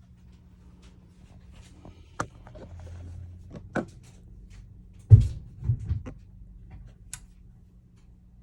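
Tools and parts being handled on a workbench: scattered light clicks and taps, then a dull thump about five seconds in followed by two smaller knocks.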